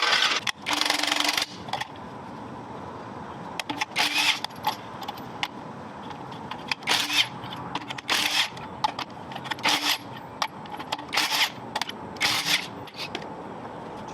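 A power tool run in short bursts, about eight times, each burst under a second long, with a motor hum under each one.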